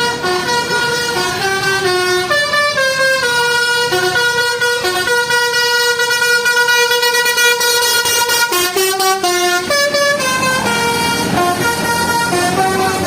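Bus telolet horn, a multi-note basuri-style air horn, playing a tune of stepped notes. A quick run of short notes comes about two-thirds of the way through.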